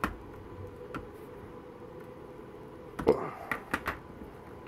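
Gears and a wrench being handled on a plastic tub lid: a sharp click at the start and another about a second in, then a cluster of knocks and clicks with a brief ring about three seconds in, over a steady low hum.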